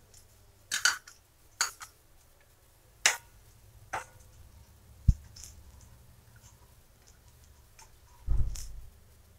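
Wooden spatula stirring whole spices in hot oil in a nonstick kadai: a handful of short, sharp clicks and knocks against the pan, then a heavier low bump near the end.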